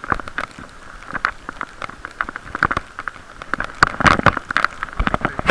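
Raindrops tapping on a waterproof camera case: a dense run of irregular sharp clicks and taps over a muffled hiss, busiest and loudest about four seconds in.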